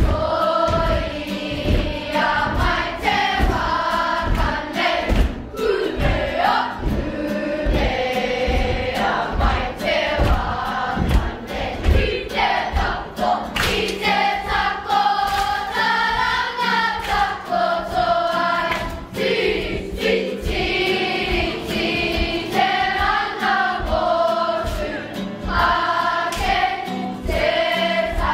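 A large group of children singing a song together, with a steady beat underneath.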